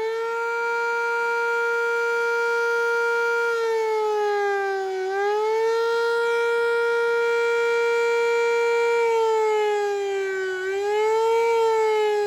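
Fire company house siren sounding for a call: one loud, steady wail that dips in pitch and swings back up twice, then begins to wind down near the end.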